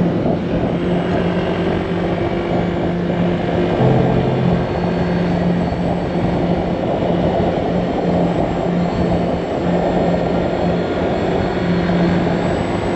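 Honda Click 160 scooter's single-cylinder engine running at a steady cruising speed, with wind rushing over the microphone.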